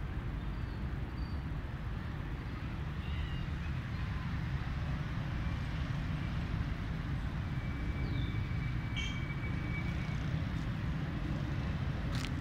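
Outdoor park ambience: a steady low rumble, with a few faint high chirps scattered through it and a sharp click near the end.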